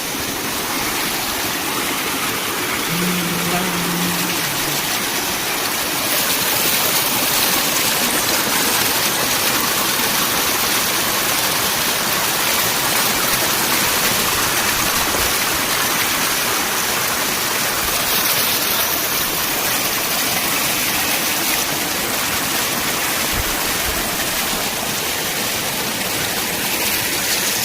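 Water of a small rocky waterfall pouring and splashing onto stone: a steady rushing hiss, a little louder from about six seconds in.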